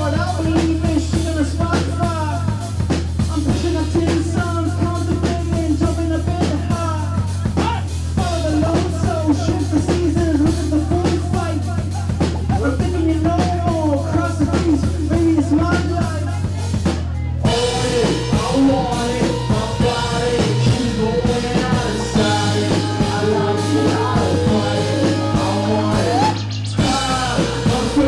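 A live rock band playing: a male singer over drum kit and keyboards, loud and full. About seventeen seconds in the arrangement changes to held tones, with a rising glide near the end.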